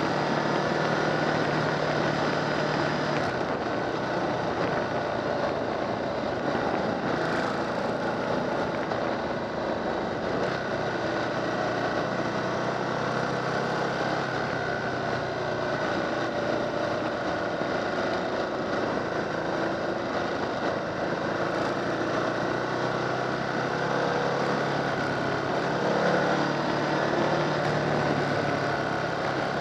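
Motorcycle engine running at a steady cruise, heard from on the moving bike, with wind and road noise; its pitch drifts gently up and down as the speed changes.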